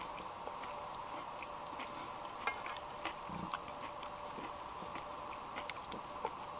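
Scattered light clicks and taps of a wooden spatula and a fork against a plate as a pancake is cut, over a steady background noise.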